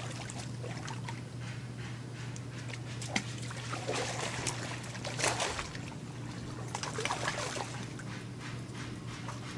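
Swimming-pool water splashing and trickling in irregular bursts, the strongest about five seconds in, over a steady low hum.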